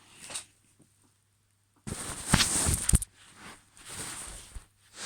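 A person making breathy, clicking mouth noises in imitation of a chicken, with the loudest burst about two seconds in, followed by softer, noisier sounds.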